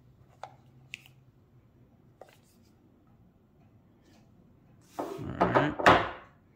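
Handling of a smart lock's box and packaging: a few faint clicks and taps, then about five seconds in a loud burst of rustling and scraping lasting about a second, as the lock unit is pulled out of its packaging.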